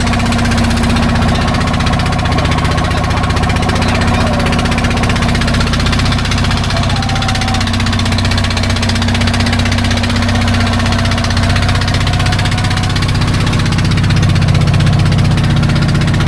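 A boat engine running steadily at a constant speed.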